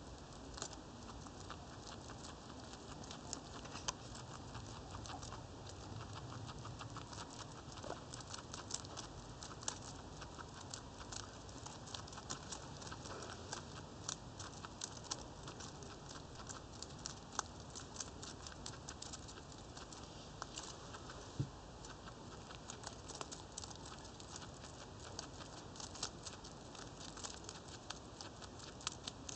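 Guinea pig chewing timothy hay close up, a fast irregular run of small crunching clicks as it works a strand in.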